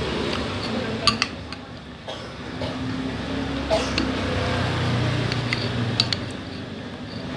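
Metal spoon clinking against a ceramic soup bowl a few times, two quick clinks about a second in and single ones later, over a steady low background hum.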